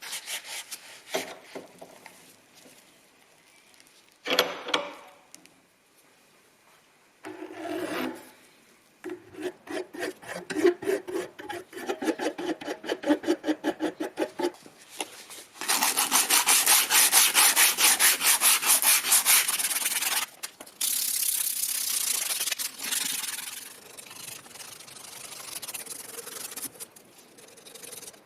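Hand abrasive work scrubbing rust off old tool parts: a few single scrapes, then quick even back-and-forth strokes about three or four a second from about nine seconds in, turning into a fast continuous scrubbing from about sixteen seconds that eases off near the end.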